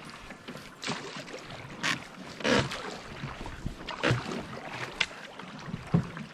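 Wooden canoe paddle strokes in river water, a splash and swish roughly once a second over a low, steady wash of moving water.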